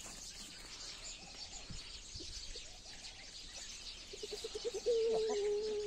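A chicken gives a quick run of clucks about four seconds in that runs straight into one long drawn-out call, the loudest sound here. Small birds chirp faintly in the background.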